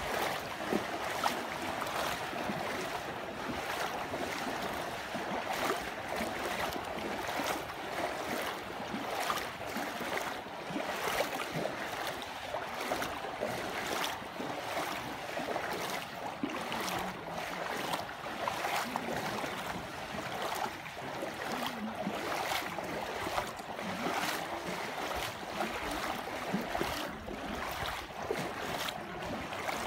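Steady rushing noise of water, with wind gusting on the microphone.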